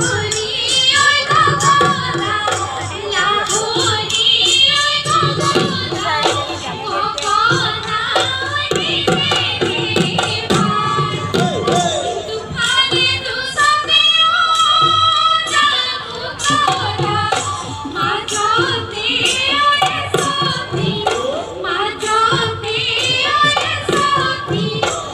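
Live Bihu music: voices singing a Bihu song over steady drumming, with a held high-pitched tone for a couple of seconds about halfway through.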